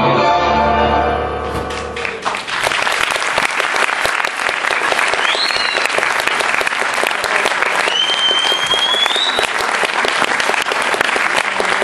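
Tango music ends on a held final chord, and about two seconds in an audience breaks into steady applause. Two rising whistles cut through the clapping, a short one midway and a longer one later.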